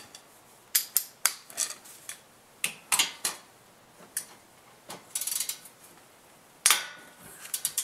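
Steel hand tools clinking against the front brake caliper bracket as a socket and bar are set on its bolts: irregular sharp metallic clicks and taps, a quick rattle in the middle and one louder clank near the end.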